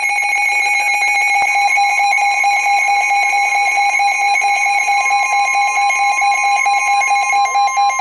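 Midland NOAA weather alert radios sounding their alarms for a severe thunderstorm warning: a loud, shrill, rapidly pulsing alert beep. A second steady tone, slightly higher, joins in about a second and a half in, and the pulsing beep starts to break up near the end.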